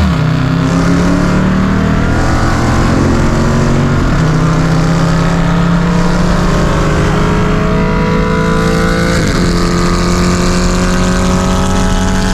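Car engine at full throttle, accelerating hard through the gears. Its pitch climbs steadily in each gear, broken by gear changes right at the start, about four seconds in and about nine seconds in.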